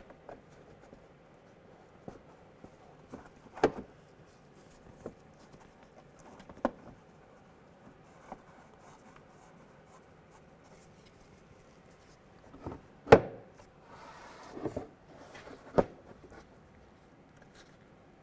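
A plastic inner fender liner being handled and its fasteners started by hand: faint rubbing and rustling with about six sharp clicks and knocks, the loudest about 13 seconds in.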